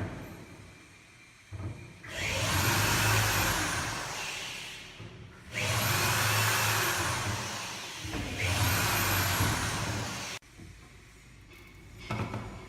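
Three loud hissing blasts of air, each two to three seconds long, with a faint high whistle that rises and falls in each.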